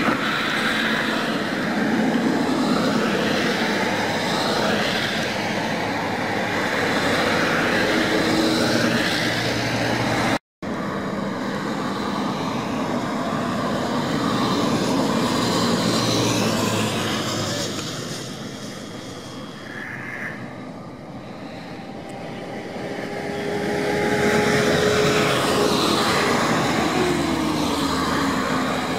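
Highway traffic: buses and other motor vehicles going by one after another, engine and tyre noise rising and falling in pitch as each passes. It quietens for a few seconds past the middle, then builds again as another vehicle approaches.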